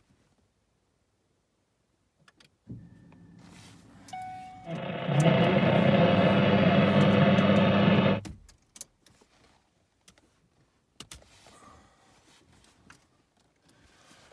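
Car equipment in a 2012 Ford Focus cabin switching on with the ignition on while its body control module is being reprogrammed. A low steady hum starts about three seconds in and a brief tone sounds, then a loud steady mechanical sound runs for about three and a half seconds and cuts off suddenly.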